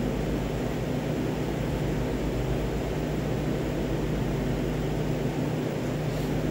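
Steady low mechanical hum of fan-driven kitchen equipment, with an even hiss over it that does not change.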